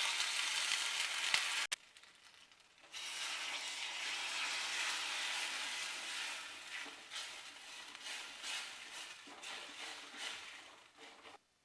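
Jaggery and a little water sizzling in a hot pan as the jaggery melts. The sizzling breaks off briefly about two seconds in, comes back, then slowly dies down toward the end.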